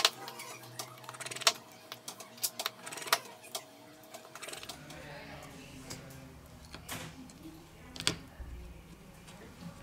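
Scattered small clicks and taps of tools and parts during reassembly of a OnePlus 3T smartphone, with a sharp click every second or so.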